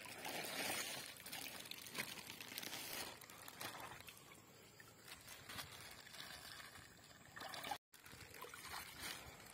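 Water pouring and trickling from plastic bags into a pond as tiger shrimp fry are released, faint and louder in the first few seconds.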